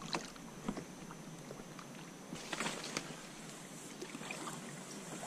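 Kayak being paddled: the paddle dipping and swishing through the water with small drips and knocks against the hull, and one louder splashing stroke about two and a half seconds in.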